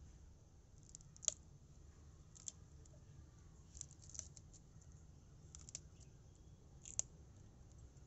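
Faint, scattered snaps and clicks as green chillies are broken by hand and dropped into a steel mixer-grinder jar, about half a dozen in all, over a low steady hum.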